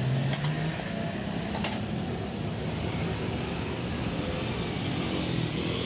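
Thai omelette frying in oil in a wok over a gas burner: a steady sizzle over the burner's rush, with two light clicks of a metal spatula on the wok in the first two seconds.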